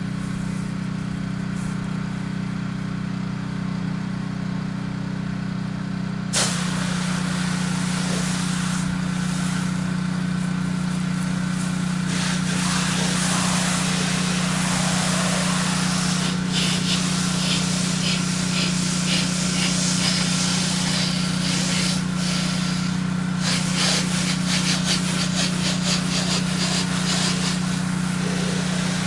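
Pressure washer's engine running steadily. About six seconds in the spray gun opens and a loud hiss of spraying water joins it, the engine note growing stronger under load. This is a low-pressure soft-wash spray of cleaning chemical, and its hiss flickers in the second half.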